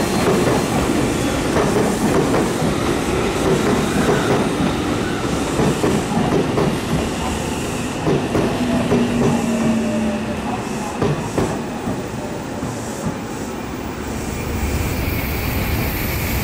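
Tokyu electric commuter train running past on a nearby track, its wheels clacking over the rail joints. The clatter eases off after about ten seconds as the train clears the station.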